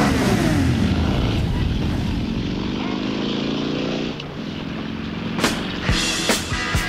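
Several sport motorcycle engines revving together, their pitch rising and falling; then one engine accelerating with rising pitch until it cuts off about four seconds in. Near the end, sharp drum hits of rock music begin.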